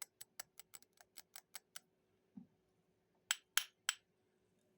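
A glass perfume bottle being tapped. A quick, even run of light ticks, about five a second, stops under two seconds in. After a soft thump come three louder clinks in quick succession.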